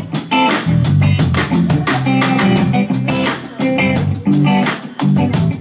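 Live band music: an electric guitar playing over drums and bass.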